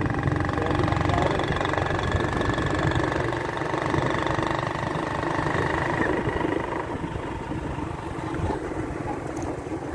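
Motorcycle engine running steadily while riding, a little quieter in the second half.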